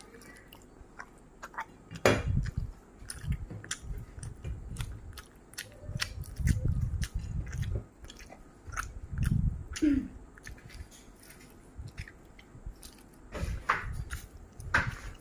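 Close crunching and cracking from lemang, sticky rice cooked in a bamboo tube, being opened and handled. There is a sharp crack about two seconds in, then irregular low thuds and crunching, and two more cracks near the end.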